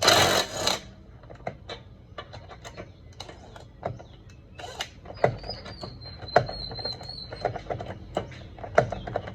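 Socket wrench working on the wheel of a car: irregular sharp metal clicks and knocks, after a loud, brief rush of noise in the first second.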